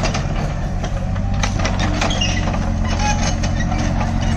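Tata Hitachi 33 mini excavator's diesel engine running steadily as the machine works, with scattered short clanks and knocks from about a second and a half in.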